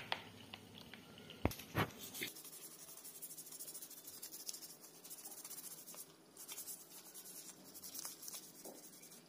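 Toothbrush bristles scrubbing the shell of a live freshwater crab, a faint quick scratching, with a few light knocks in the first two seconds.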